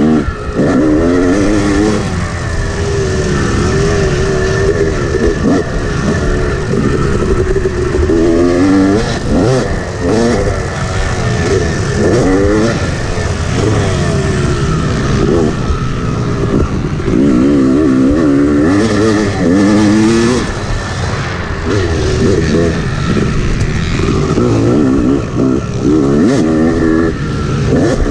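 Yamaha 250 two-stroke motocross bike's engine being ridden hard, its revs climbing and dropping again and again.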